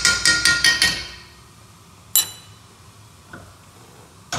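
A metal spoon tapped quickly and repeatedly against the rim of a wok, about six or seven ringing clinks a second, knocking crushed garlic and onion off the spoon. It stops about a second in, followed by a single tap about two seconds in and another near the end.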